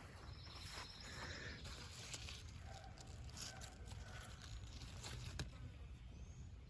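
Faint outdoor garden ambience: a low rumble, scattered light rustles and clicks, and a few faint distant bird calls.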